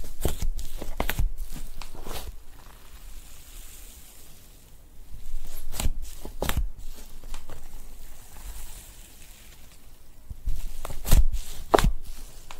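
Thick, fluffy slime being scooped and pressed with a plastic spoon, giving crisp crackling and crunching pops. The pops come in clusters several seconds apart, and the loudest come near the end.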